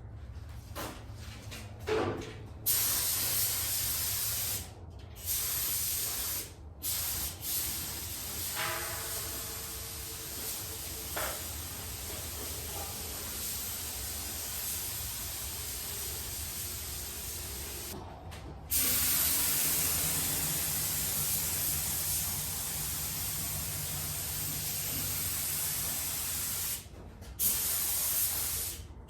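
Clear coat being sprayed: a steady hiss in long passes, with short stops about 5 and 6.5 seconds in, then again near 18 and 27 seconds in.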